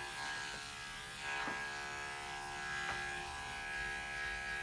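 Electric dog grooming clippers running with a steady buzzing hum while lightly trimming the hair on a dog's leg.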